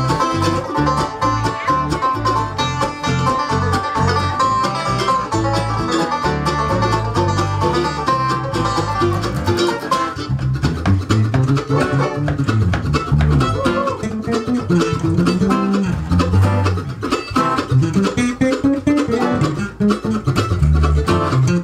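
Acoustic bluegrass band playing an instrumental passage: banjo and mandolin picking fast over guitar and bass. About halfway through, the dense high picking thins out and the moving bass line stands out more.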